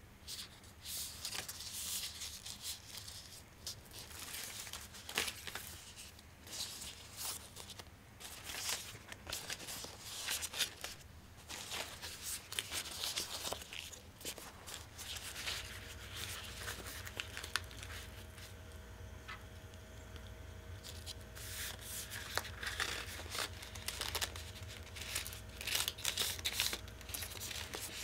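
Bamboo leaves being handled and folded, a run of irregular dry rustling, crinkling and short tearing strokes. A faint steady hum comes in about halfway.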